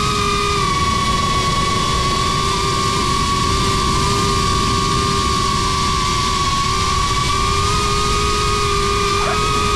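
GEPRC Crown HD cinewhoop FPV drone's motors and propellers whining steadily in flight, heard close up over a low wind rumble. The pitch dips slightly about half a second in and rises a little near the end.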